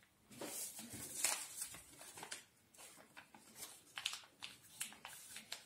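Paper being folded and creased by hand: faint, scattered rustles and short brushing sounds as the sheet is pressed and slid.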